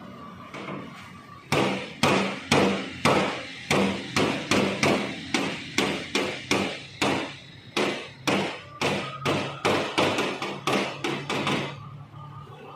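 A hammer striking over and over at a steady pace, about two to three sharp blows a second. The blows start about one and a half seconds in and stop about a second before the end.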